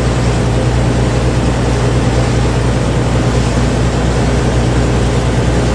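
Fishing boat's engine running with a steady low drone under a constant rushing hiss.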